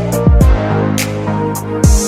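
Electronic background music with held synth tones, deep kick drums that drop in pitch, and crisp snare or hi-hat hits on the beat.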